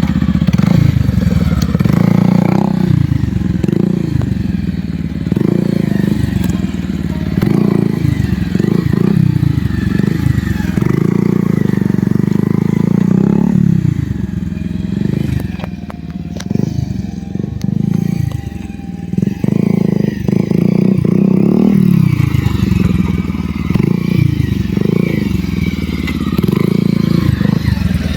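Motorcycle with an aftermarket exhaust being revved over and over, each throttle blip rising and then falling back towards idle, with a quieter idling stretch about halfway through.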